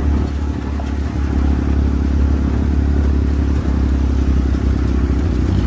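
Desert buggy's engine running steadily while driving, heard from on board as a deep, even drone.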